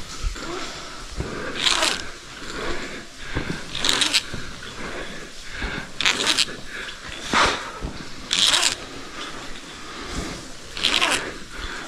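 Rope ascent: a short rasping zip about every two seconds as the rope slides through the climber's ascenders with each stroke.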